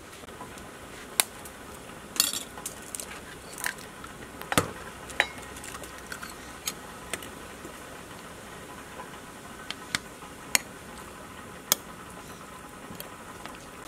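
Scattered sharp clinks and taps of eggs being cracked and a metal spoon knocking on a ceramic plate, with a short cluster of taps about two seconds in.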